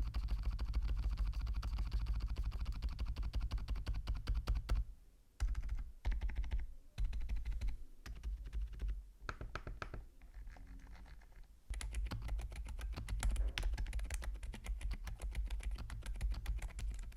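Typing on a GMK67 mechanical keyboard with lubed Outemu Silent Lemon tactile silent switches and pudding keycaps: quick, muffled key presses in fast runs. There is a brief pause about five seconds in and a lighter, sparser stretch around ten seconds.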